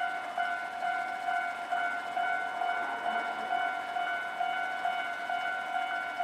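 Japanese railway level-crossing warning bell ringing in a steady repeated clang, about two and a half strikes a second.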